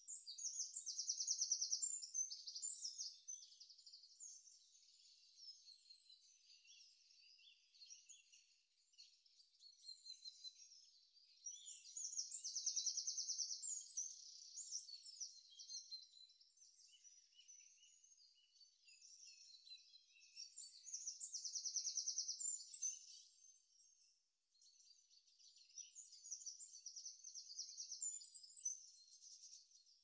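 Faint birdsong: a rapid high trill sung four times, about every nine or ten seconds, with softer chirps and twittering in between.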